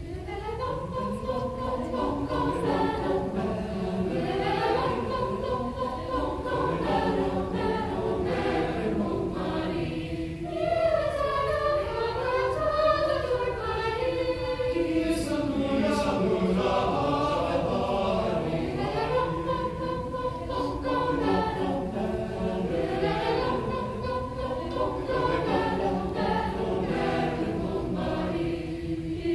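Mixed choir of young men and women singing in parts, beginning right at the start, heard from the audience seats of an auditorium.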